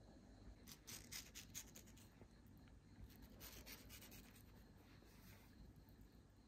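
Faint scratching and rubbing in two short clusters, otherwise near silence.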